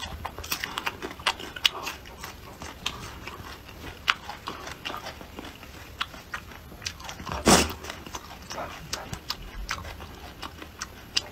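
Close-up mouth sounds of someone chewing raw red chilli pepper: a scatter of short, wet clicks and crunches. About seven and a half seconds in comes a single loud, brief sniffle through the nose, from the chilli's heat.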